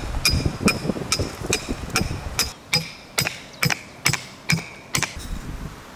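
A hammer striking the top of a metal rod, driving it into sandy ground to make a hole: about a dozen sharp metal-on-metal blows, each with a short ring, a little under half a second apart, spacing out slightly and stopping about five seconds in.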